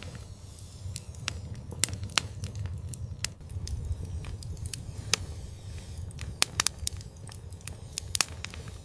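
Wood fire crackling in an outdoor fireplace: irregular sharp pops and snaps, a few a second, over a steady low rumble of burning.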